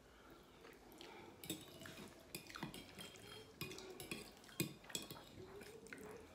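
Metal fork clinking and scraping against a plate while scooping up risotto: a string of sharp clinks and short scrapes between about one and a half and five seconds in, the loudest near the end of that run.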